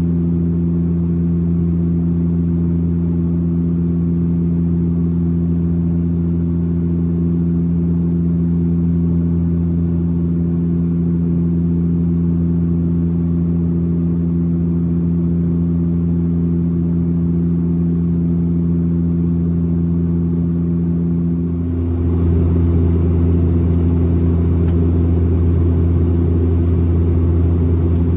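Cabin drone of a Bombardier Dash 8 Q400's Pratt & Whitney PW150A turboprop and six-bladed propeller in flight, heard from a window seat beside the propeller: a steady low hum with several even tones. About 22 seconds in it shifts, becoming a little louder and rougher.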